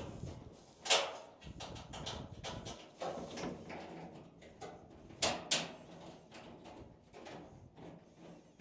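Irregular metal clanks, scrapes and rattles of dryer parts and bolts being handled during reassembly, with sharper knocks about a second in and around five seconds in.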